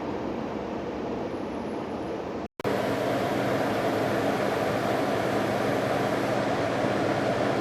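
Steady running noise of a Ford F-150's 3.5-litre V6 engine with the A/C on and the radiator cooling fans running, while the A/C system is being charged with refrigerant. It drops out for a moment about two and a half seconds in and comes back louder.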